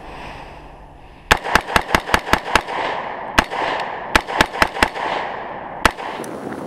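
AR-15 rifle in 5.56 with a Battlecomp 1-inch compensator firing about a dozen semi-automatic shots: a quick string of seven, a single shot, four more in quick succession, then one last shot, each trailing off.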